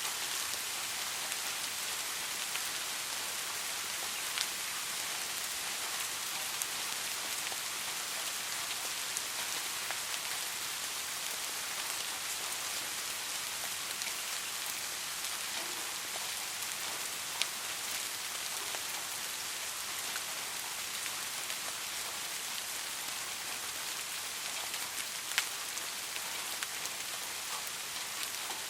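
Steady soft rain falling, an even hiss with a few sharper single drops tapping now and then.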